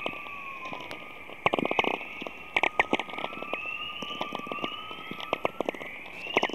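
Recording presented as the sound of the aurora: crackling like radio static, with clusters of sharp clicks. Beneath them runs a thin whistling tone that slowly rises in pitch several times.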